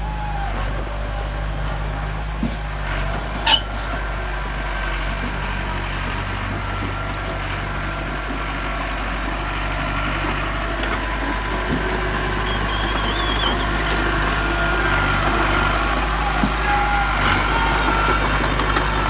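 Diesel engine of heavy earthmoving machinery running steadily, with a sharp knock about three and a half seconds in.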